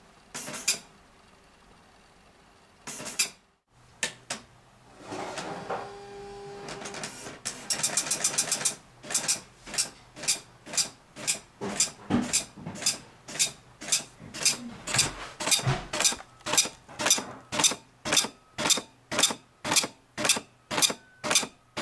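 Epson LQ-300+ 24-pin dot matrix printer resuming after paper has been reloaded. The paper feed runs for a few seconds, then the print head prints line after line, a short buzzing burst for each line, about two a second.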